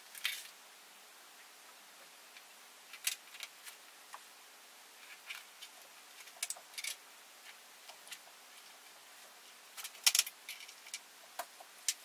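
Small, irregular clicks and taps of a jeweller's screwdriver and tiny screws as the bottom case of a MacBook Pro is screwed back on. The loudest cluster of clicks comes about ten seconds in.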